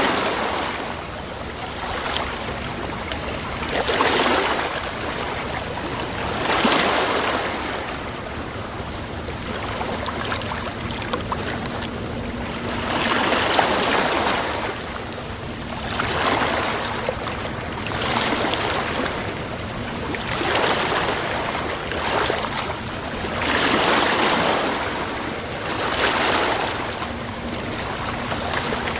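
Sea waves breaking and washing in, swelling in a surge of surf every two to three seconds.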